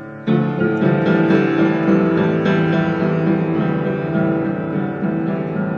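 Upright piano, improvised playing recorded on a cell phone: a loud chord is struck just after the start, then chords and notes ring on.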